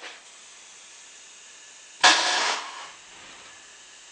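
A sudden short blast of compressed air from a pneumatic pigging line about two seconds in, lasting about half a second, over a faint steady hiss, as the line drives the pig back to its station.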